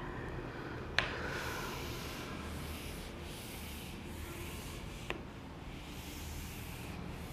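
Whiteboard duster rubbing across a whiteboard in repeated back-and-forth strokes as writing is wiped off, with two sharp clicks about a second in and about five seconds in.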